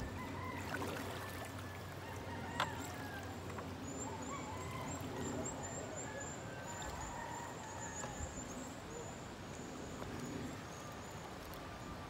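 Birds calling outdoors, with short whistled notes throughout and a fast run of high, thin chirps in the middle. One sharp knock comes about two and a half seconds in.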